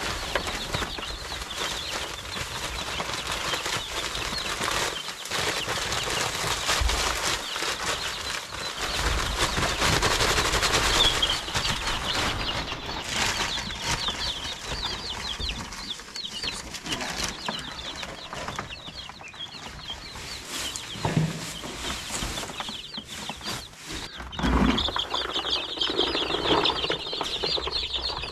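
Pine wood shavings pouring and rustling into a wooden brooder box, over a crowd of baby chicks and ducklings peeping constantly. The pouring hiss is strongest in the first dozen seconds; the peeping gets thickest near the end.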